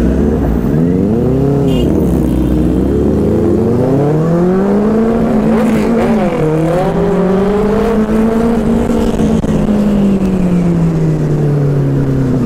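Benelli 600i's inline-four engine heard from the saddle while riding in traffic. It revs up and down with the throttle: a quick blip about a second in, a climb from about three seconds, then holding before easing off near the end.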